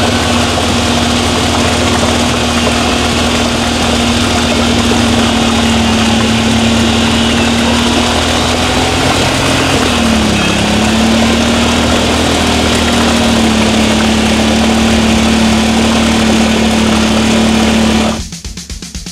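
Side-by-side UTV's engine held at high, steady revs as it strains to pull out of deep mud. The revs sag and climb back about halfway through, and the engine sound cuts off abruptly near the end.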